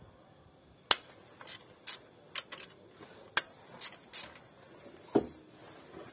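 Irregular sharp metallic clicks and clacks of a hand wrench working the ignition coil bolts, the loudest about a second and three and a half seconds in, then a duller knock about five seconds in.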